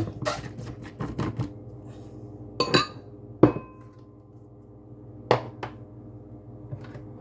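Scattered sharp knocks and clinks of hard plastic blender cups and containers being handled, set down and knocked together. There is a quick cluster in the first second and a half, then single knocks, the loudest about three and a half seconds in.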